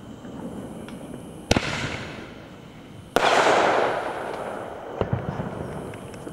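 Aerial fireworks bursting overhead: three sharp bangs about a second and a half apart, the middle one the loudest, with a hissing tail that fades over about a second.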